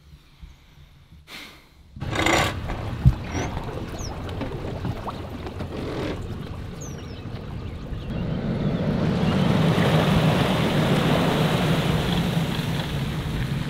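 Engine running steadily with water sounds, growing louder about eight seconds in, after a near-quiet start; one sharp knock about three seconds in and a few short high chirps.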